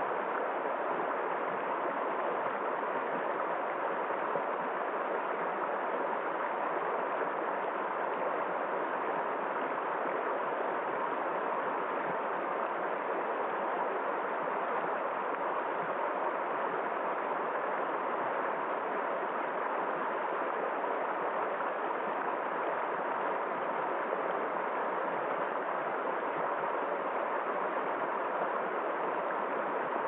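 Shallow rocky stream rushing over stones in small rapids: a steady, unbroken rush of running water.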